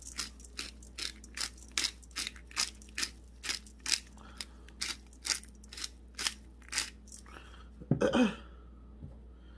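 Hand spice grinder being twisted to season food, a steady run of crunching clicks at about two and a half a second that stops about seven seconds in. A brief throaty vocal sound follows near the end.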